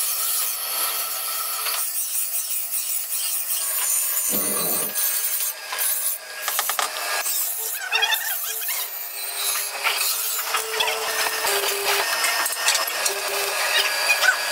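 Steel shear blades being ground and filed: a harsh scraping hiss with short rasping strokes, and a dull thump about four and a half seconds in.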